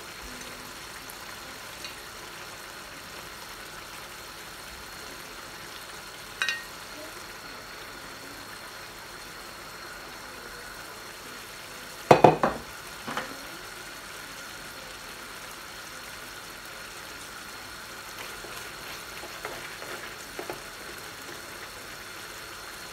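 Baila fish curry sizzling in a frying pan on a gas stove, a steady low hiss. A couple of sharp knocks come about halfway through, and light clicks of a wooden spoon in the pan near the end.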